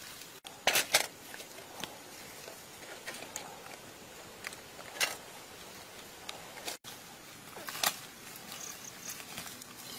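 Handling and footstep sounds in dry forest litter: a few sharp crackles and knocks from a woven bamboo basket and twigs, the loudest about a second in, over a steady background hiss.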